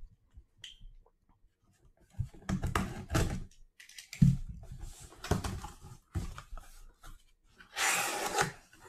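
Cardboard box being opened by hand: the flaps pulled apart and the inner box handled, giving bursts of cardboard scraping and rustling, the longest and loudest near the end. A short high squeak about a second in.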